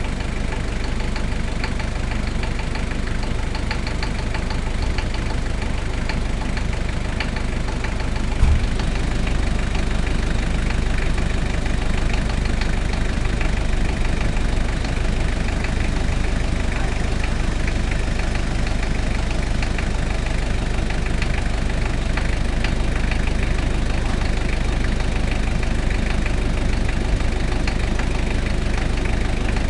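Toyota 1KZ-T four-cylinder turbodiesel engine idling steadily, with the noise in the engine that the owner is showing. A single short thump about eight seconds in.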